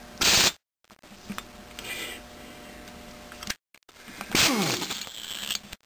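Impact wrench hammering in two bursts: a short one at the start and a longer one about four seconds in whose pitch falls as the motor winds down. It is drawing a crankshaft bushing into the crankcase of a 1937 Maytag twin.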